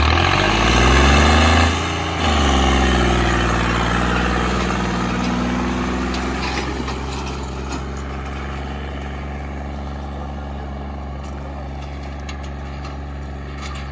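John Deere 5210 tractor's diesel engine revving up hard, dipping briefly about two seconds in, then running at high revs under load and slowly easing off.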